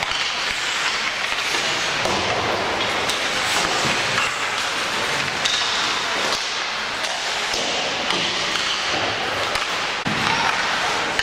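Noisy game-side din with scattered knocks and thuds throughout, and faint voices in the mix.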